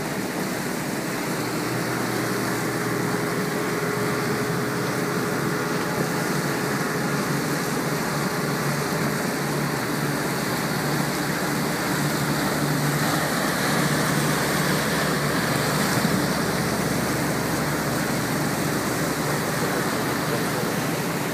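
Small motorboats running at speed, their engines droning under a steady rush of water and wake, growing a little louder about two-thirds of the way through.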